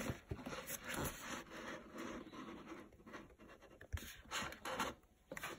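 Faint scraping and rustling of a sheet of card sliding over a tabletop and under an upturned plastic cup, with a few light taps, the sharpest about four seconds in.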